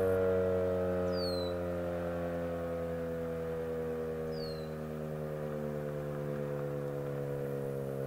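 ACA P-10 single-tone outdoor warning siren sounding a steady tone during a test, its pitch sagging slowly.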